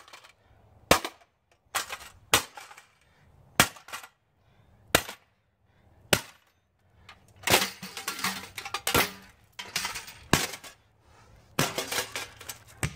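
A pickaxe smashing a bathroom scale on the ground. Sharp cracking blows come about once a second, then a faster flurry of hits with breaking and clattering pieces in the second half.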